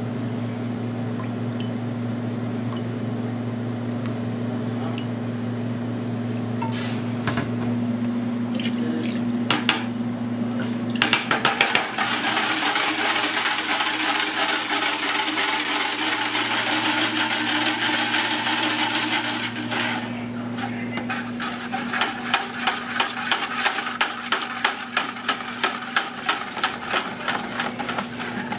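A wire whisk mixing batter in a plastic bucket. First comes a steady swishing as it stirs liquid, then a run of even strokes about two a second as it works flour in. A steady kitchen hum sits underneath.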